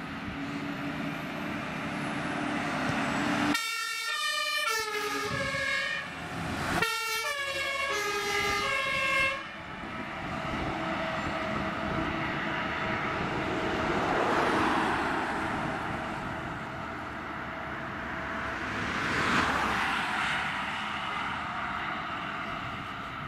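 Fire engine's two-tone siren (Martinshorn) sounding in two bursts of alternating high and low notes with a short break between them. After that, the heavy trucks' engines and tyres swell and fade twice as the following fire engines drive past.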